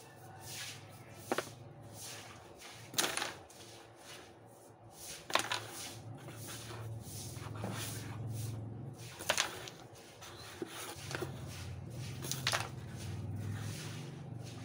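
Carrom game: the striker flicked across the board and clacking into the wooden carrom men, with sharp clacks every few seconds and a low steady hum behind.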